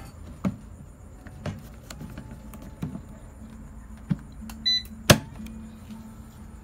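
Kalite air fryer oven running with a steady low fan hum, while its metal trays and door are handled: several sharp knocks and clicks, a short electronic beep just before the loudest click a little after 5 seconds.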